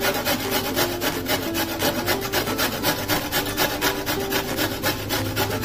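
A carrot grated on the fine side of a metal box grater: quick, even rasping strokes, several a second.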